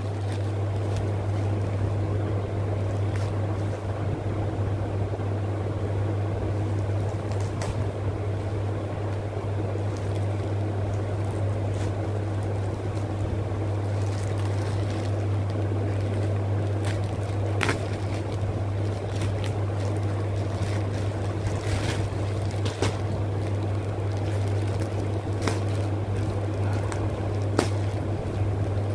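Plastic courier pouch crinkling and rustling as it is cut open and the packed bag is pulled out, with scattered sharp crackles. Under it runs a steady low hum with air noise.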